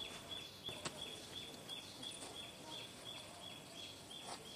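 Faint outdoor ambience: a high, thin chirp repeats evenly about three times a second over a soft hiss, with two sharp clicks, one about a second in and one near the end.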